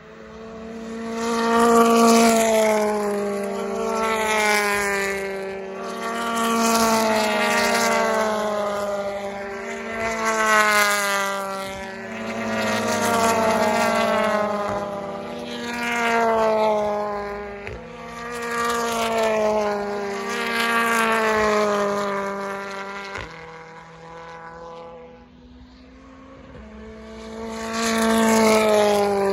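BTCC touring cars with 2.0-litre turbocharged four-cylinder engines passing one after another at racing speed. Each engine note swells to a loud peak and falls in pitch as the car goes by, several times over.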